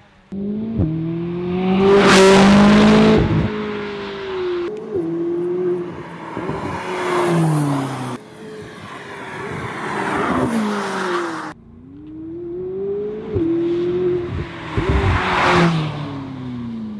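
McLaren Sports Series car's 3.8-litre twin-turbo V8 accelerating hard through the gears, the engine note climbing and dropping at each upshift, with two loud drive-bys, one about two seconds in and one near the end. The sound cuts abruptly between clips several times.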